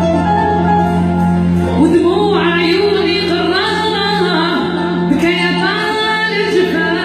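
Background music: a song with a singing voice over steady low notes, the voice coming in about two seconds in.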